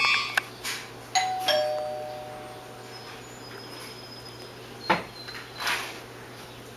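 Two-note ding-dong doorbell chime: a higher note then a lower one, ringing out for about a second and a half. A sharp knock comes about five seconds in.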